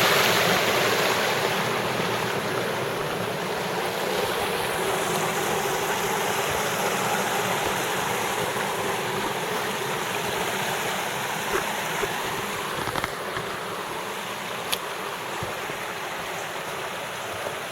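Creek water rushing steadily through and past a small cinder-block dam, with a few faint clicks in the second half.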